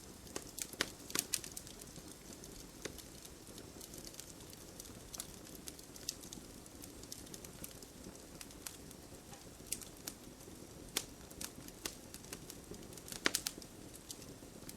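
Campfire burning: a low steady hiss with irregular sharp crackles and pops of burning wood, coming in small clusters about a second in and again near the end.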